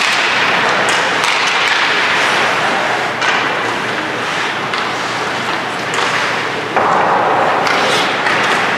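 Ice hockey play: skate blades scraping and carving across the ice, broken by a few sharp clacks.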